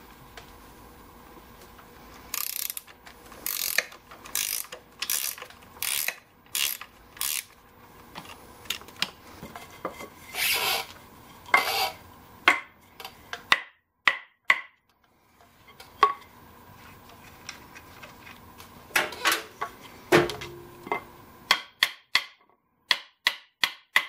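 Wrench strokes loosening the handlebar pivot bolt on a BCS 725 two-wheel tractor: about seven ratchet-like strokes in a steady rhythm, then a couple of longer ones. Near the end come light, sharp hammer taps on a drift punch, driving the bolt out.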